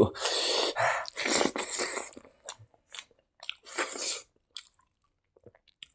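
Close-miked chewing of a mouthful of rice eaten by hand, in irregular wet bursts that thin out in the second half and pause near the end.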